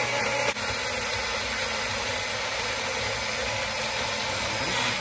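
Magic Bullet blender motor running steadily at full speed, blending a wet marinade of herbs, onion, garlic and sauces into a puree. The noise dips briefly about half a second in, then holds steady.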